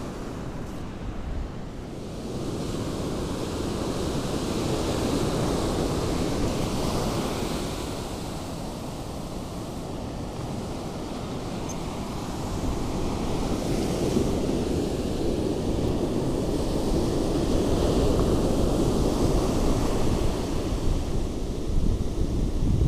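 Ocean surf washing up a sandy beach, swelling twice, with wind buffeting the microphone.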